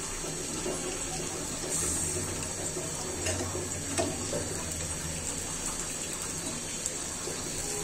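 Lentil fritters (piaju) deep-frying in hot oil in a cast-iron pan, a steady sizzling and bubbling. A couple of light clicks of a spatula against the pan come a little after the middle.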